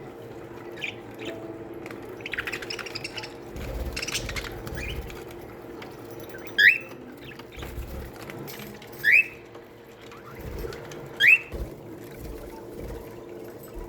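Budgerigars chattering in an aviary: soft chirps and clicks, then three short, loud calls that rise in pitch, about two and a half seconds apart.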